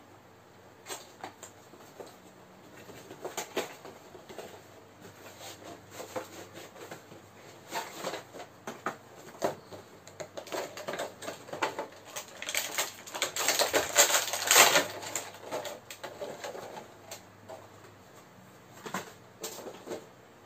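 Cardboard action-figure box and clear plastic packaging tray being handled and opened: scattered clicks and taps, with a denser, louder stretch of rustling about two-thirds of the way through.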